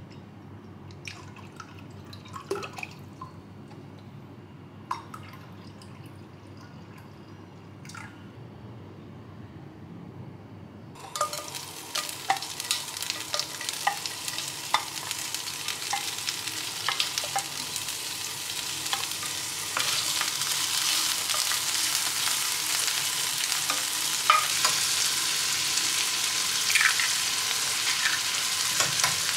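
A few light clinks and knocks, then food frying in hot oil in a frying pan: a sizzle starts suddenly about a third of the way in, as shrimp shells go into the oil, with spatula ticks and crackles, and grows louder about two thirds of the way in, with diced onion and an egg frying.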